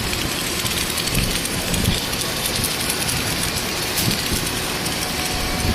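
Submerged arc (SAW) automatic welding machine on its boom running: steady mechanical noise with a hiss, and a few soft low thumps.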